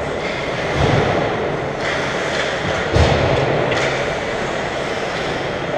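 Ice hockey game in an arena: a steady rumbling din of play on the ice, with two dull thumps about one second and three seconds in.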